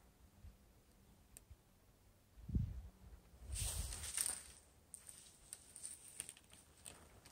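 Phone microphone rubbing against clothing as it is carried: a low bump, then a rustle about three and a half seconds in, followed by scattered light clicks.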